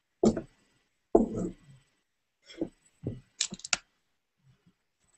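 Handling noise: two dull thumps or rubs in the first second and a half, then a quick run of sharp clicks and knocks about three seconds in, as the knife is put aside and the webcam is picked up and moved.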